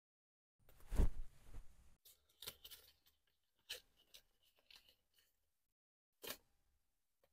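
Paper banknotes rustling and flicking as they are taken out of a wallet and counted by hand: a louder rustle about a second in, a run of short crisp flicks, and one more sharp rustle near the end.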